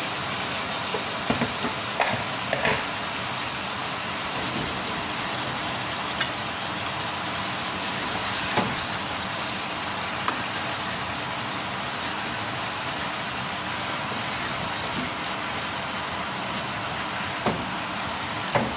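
Lamb and potato roast sizzling and bubbling steadily in a frying pan over a high gas flame after hot water has been added, with a wooden spatula knocking and scraping against the pan now and then as it is stirred.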